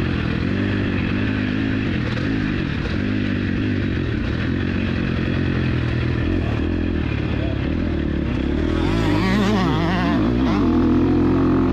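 KTM 250 SX-F four-stroke single-cylinder motocross engine running under throttle. Its pitch rises and falls quickly and repeatedly from about nine seconds in as the throttle is worked.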